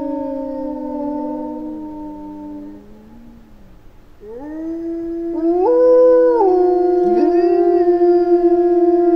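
A small pack of European wolves howling in chorus: overlapping long howls fall in pitch and fade about three seconds in. A new howl then rises, briefly jumps higher, and settles into a steady held note as another wolf's rising howl joins it.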